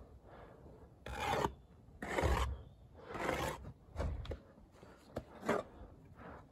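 Gritty scraping of bricklaying work, bricks and a steel trowel grating against sandy mortar and each other, in about five strokes roughly a second apart.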